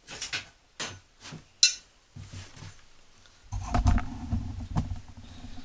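Steel lawn mower blade being picked up and handled: a few sharp metal clinks and knocks, then, about three and a half seconds in, a louder low rumbling scrape with more clinks.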